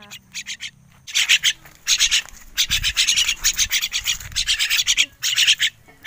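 Young crested mynas giving rapid begging calls, several short notes a second in bursts, asking to be fed.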